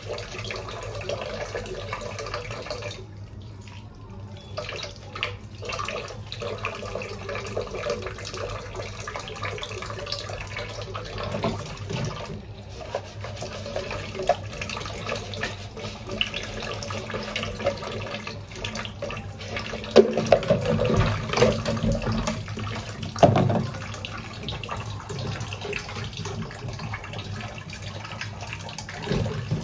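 Tap water running into a stainless-steel kitchen sink while plastic dishes and a plastic jug are rinsed, with small clinks throughout and a few louder knocks of dishes against the sink later on.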